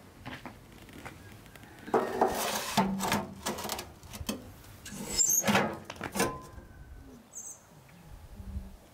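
A metal pan scraping and clanking against a sheet-metal oven as it is slid in, in two bursts of knocks and scrapes about two and five seconds in.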